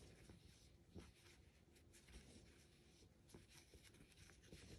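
Near silence, with faint, irregular rustling and small ticks of a crochet hook drawing yarn through stitches.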